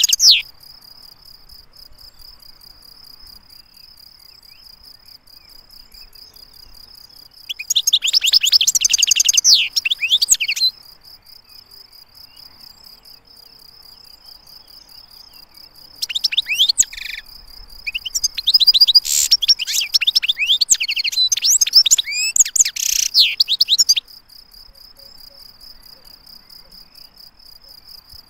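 European goldfinch singing in bursts of fast, fluttering song: one burst ends just after the start, a second lasts about three seconds a quarter of the way in, and a longer bout of about eight seconds follows past the middle. A steady, thin, high trill carries on underneath between the songs.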